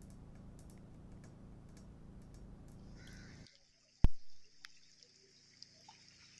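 Steady low outdoor rumble from field audio over flooded streets, which cuts off abruptly about three and a half seconds in. A single sharp, loud click follows, the loudest sound, and then faint hiss.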